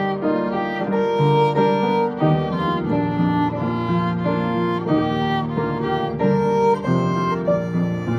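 A hymn played as a duet: upright piano chords and runs with a melody line of long held notes over them.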